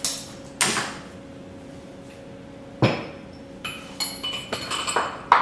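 Metal-on-metal knocks and clinks from steel parts and tools of a rescue-tool impactor assembly being worked apart on a bench. There are two sharp knocks about half a second and three seconds in, then a quick run of lighter, ringing clinks near the end.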